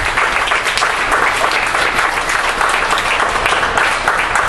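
Audience applauding, many hands clapping at once at an even level, in acknowledgment of an announced placing.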